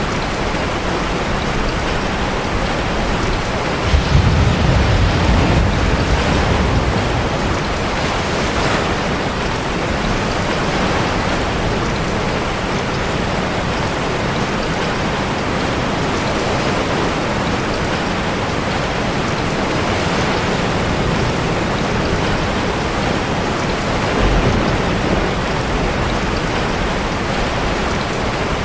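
Steady heavy rain with sea surf. A deep low rumble swells about four seconds in and lasts a few seconds, and a smaller one comes near the end.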